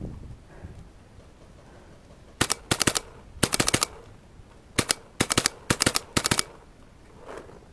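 WGP Oracle Autococker paintball marker firing in quick strings of two to four shots, several strings in a row starting about two and a half seconds in. Between the strings there are only low rustles.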